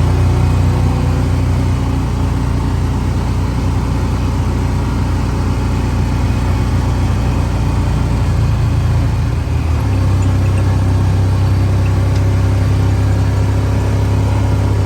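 Side-by-side UTV engine running steadily close up, its low note changing about ten seconds in.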